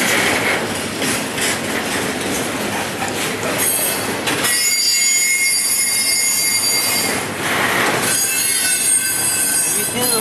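A freight train's flatcars, loaded with highway trailers, rolling past. Its steel wheels squeal in high, steady tones about four and a half seconds in, and again about eight seconds in.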